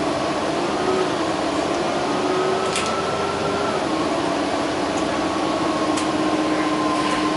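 Interior of a New Flyer XD60 articulated bus moving slowly: a steady drivetrain whine over the cabin hum, its pitch stepping down about halfway through as the bus slows toward a stop, with a couple of faint ticks.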